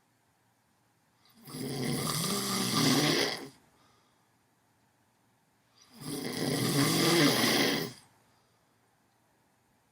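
Snoring: two long snores, the first about a second and a half in and the second about six seconds in, each lasting about two seconds and growing a little louder toward its end, with silence between them.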